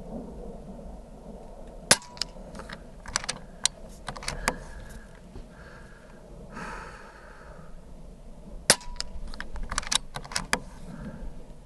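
Two shots from an Air Venturi Avenger .22 regulated PCP air rifle, about seven seconds apart, each a sharp crack. After each shot comes a run of smaller clicks as the action is cycled to load the next pellet.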